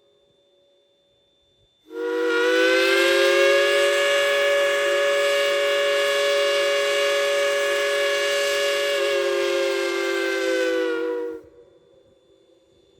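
Whistle of a Durango & Silverton narrow-gauge steam locomotive blowing one long blast of about nine seconds, a chord of several steady tones that starts and stops cleanly.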